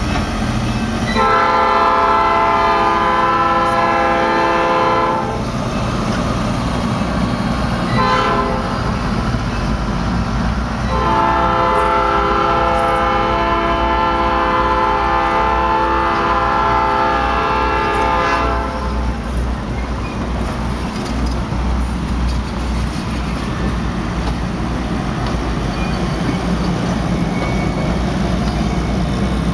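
Locomotive air horn blowing a crossing warning: a long blast of about four seconds starting about a second in, a brief toot near eight seconds, then a long blast of about eight seconds. Under it runs the steady rumble of passenger cars rolling past on the rails.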